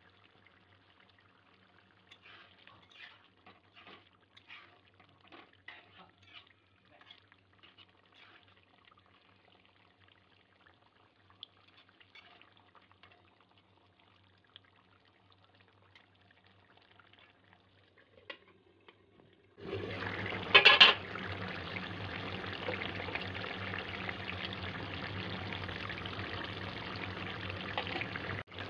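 Chicken curry gravy simmering in a steel kadai, with faint scattered bubbling pops. About two-thirds through, a much louder steady hiss comes in suddenly, with a brief sharp clatter just after it starts.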